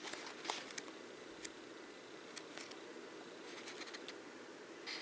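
Pages of a paperback art book being turned by hand: faint paper rustles and a few light ticks scattered through, over a steady low room hiss.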